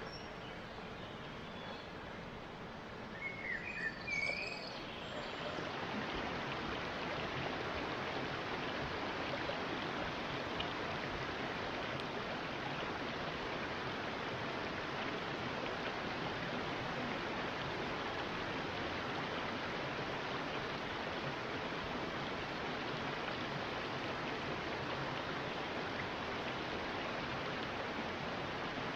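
A few short bird chirps about three to four seconds in, then a steady, even rushing noise that sets in at about five seconds and holds without change.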